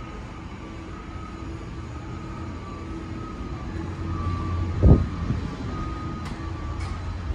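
Steady machinery drone in an airport jet bridge, a low hum with faint whining tones, with one dull thump just before five seconds in and a couple of faint clicks after it.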